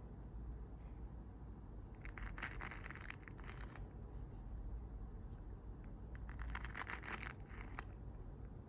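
Squishy stress toy squeezed twice, each squeeze a faint crackly, crinkling sound lasting a second or two, over a low steady hum.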